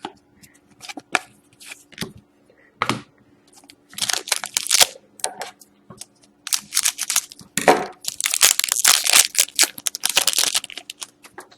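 Trading-card pack wrapper being torn open and crinkled. A few light clicks of cards being handled come first, then from about four seconds in come repeated bursts of tearing and crinkling, the longest near the end.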